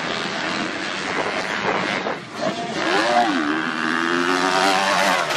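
Motocross dirt bike engines revving hard on the track, the pitch dipping and climbing again about halfway through as the throttle is worked.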